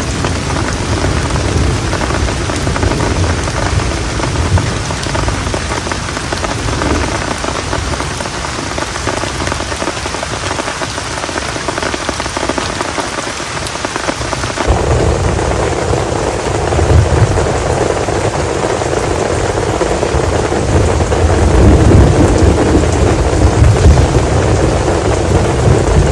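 Heavy rain pouring steadily, with thunder rumbling. The sound changes abruptly about halfway through, after which the low rumbling is stronger and louder.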